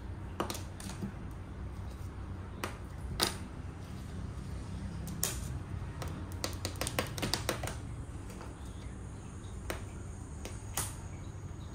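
Sharp scattered taps and clicks on a cardboard box top as a thin stick is tapped and dragged across it and a cat bats at it, with a quick run of clicks about halfway through. A low steady hum underneath.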